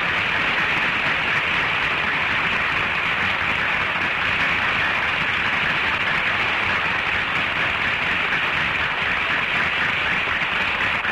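Studio audience applauding steadily, heard through a 1950 radio broadcast recording with little above the upper midrange.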